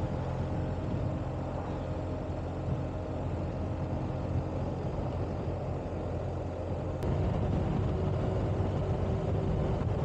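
Motorcycle engine idling steadily. About seven seconds in there is a click and the engine sound steps up a little louder with a slightly higher tone.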